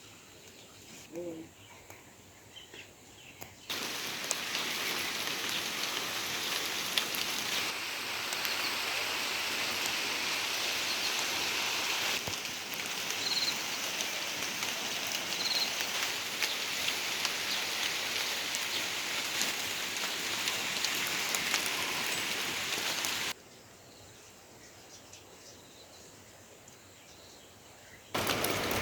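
Steady rain falling, an even hiss that cuts in sharply about four seconds in, cuts off abruptly a few seconds before the end and comes back at the very end. Between the rain stretches it is fairly quiet.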